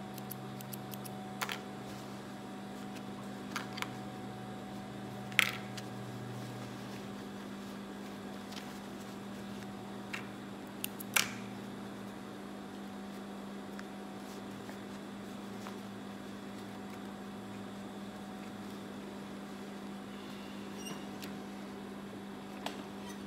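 Gemsy industrial sewing machine's motor humming steadily while idle, not stitching. A few sharp clicks and taps come from handling the work at the machine, the loudest about five seconds in and another about eleven seconds in.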